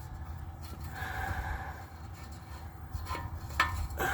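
Heavy breathing from a man working under a car, with a few light metallic clicks as a new oxygen sensor is fitted into the exhaust by hand.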